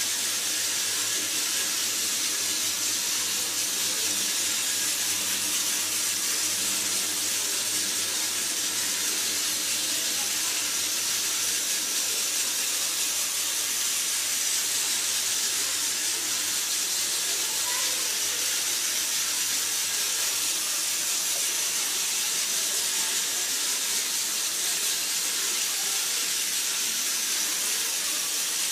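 Battery-powered Tomy Trackmaster / Plarail toy train running steadily: its small electric motor gives an even, high-pitched whirring hiss.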